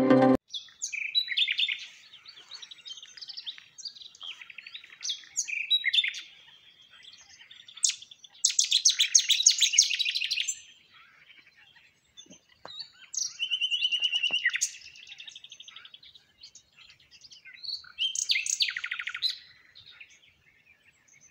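Small songbirds chirping and singing in separate bursts of quick high chirps and rapid trills, with short pauses between them. The loudest burst comes about nine seconds in.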